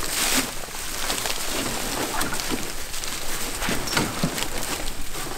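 Dry corn stalks rustling and crackling as stubbled layout blinds are shoved and packed into a wooden trailer, a dense run of irregular crackles and snaps.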